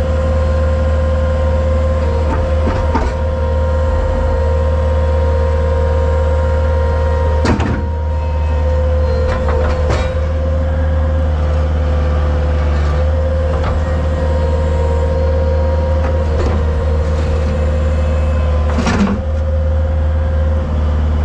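Heavy engine running steadily with a constant whine, broken by three sharp metallic clanks: one a little over seven seconds in, one at ten seconds and one near the end.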